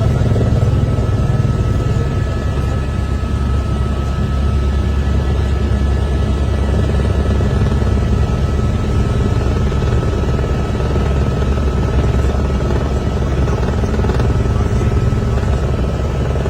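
Helicopter running steadily: a loud low rotor and engine drone with a thin, steady high whine over it.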